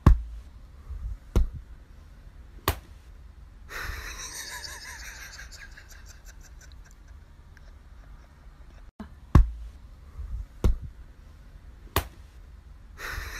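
Hand taps: two sets of three sharp knocks about a second and a half apart, one set at the start and one near the end, with faint room noise between.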